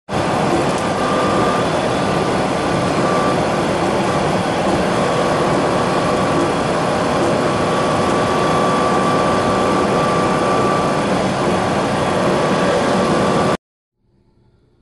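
Loud, steady noise of a semi-truck running, heard inside its cab, with a faint steady whine; it cuts off abruptly near the end.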